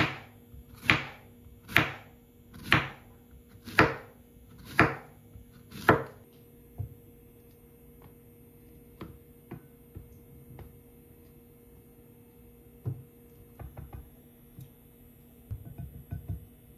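Kitchen knife slicing Korean zucchini into rounds on a wooden cutting board, seven cuts about a second apart that stop about six seconds in. Faint light taps follow as the slices are dropped and coated in flour in a bowl, over a faint steady hum.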